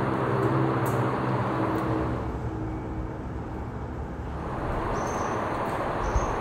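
Rumble of a passing vehicle, its low hum fading away about midway, over steady outdoor background noise.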